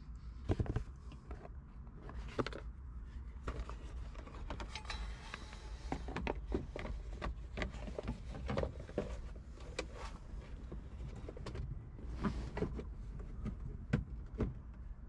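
Hands working a new hood release cable into place, making scattered clicks, light knocks and rustling.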